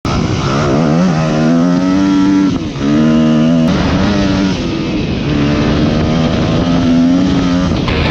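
Dirt bike engine running under way, its pitch climbing and falling as the throttle is opened and eased off, with a brief drop about two and a half seconds in.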